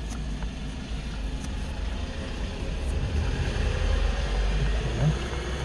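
Steady low rumble of a running vehicle, with a few faint clicks.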